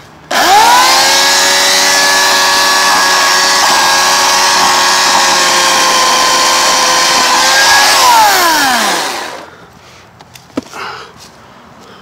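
Electric chainsaw starts abruptly and spins up within a fraction of a second, runs at a steady pitch for about eight seconds while cutting through a tree limb, then is released and winds down with a smoothly falling whine.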